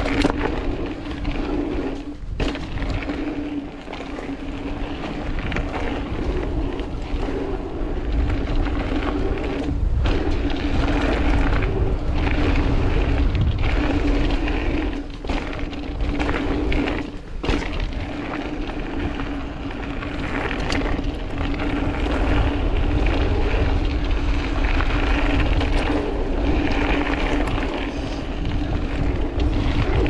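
Mountain bike riding fast over a dirt and loose-rock trail, picked up by a bike-mounted camera: wind rush and rumbling tyres with a steady hum, and sharp knocks and rattles as the bike hits bumps and stones, loudest a few times along the way.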